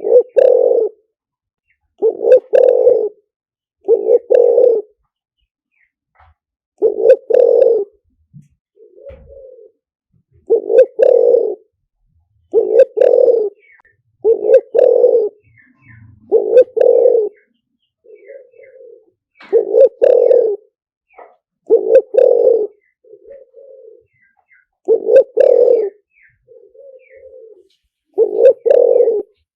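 Spotted dove cooing: a loud low coo phrase in two or three parts, repeated about every two seconds, with softer single coos between some phrases. A recorded lure call for drawing wild spotted doves in.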